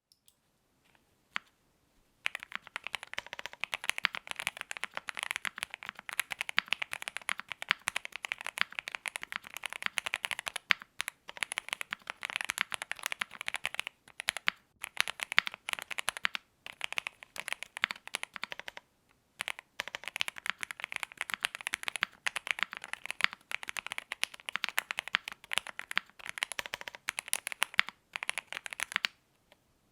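Fast, continuous typing on a Zoom65 EE mechanical keyboard with lubed Alpaca V2 linear switches in a polycarbonate plate and GMK keycaps, a dense patter of keystrokes with a few brief pauses.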